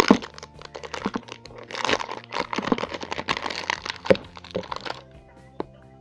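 Plastic toy packaging crinkling and tearing as it is opened by hand: a busy run of crackles and rustles that starts with a sharp crack and stops about five seconds in.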